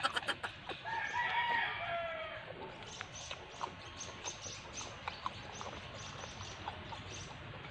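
A rooster crows once, a drawn-out call that drops in pitch at its end, about a second in. Afterwards only faint scattered clicks and crunches of chewing over low background noise.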